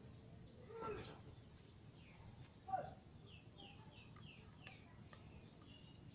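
Faint outdoor background with a bird calling: a quick run of about five short, falling high notes about three seconds in. Just before the notes there is a short, louder falling cry, and about a second in a brief pitched sound.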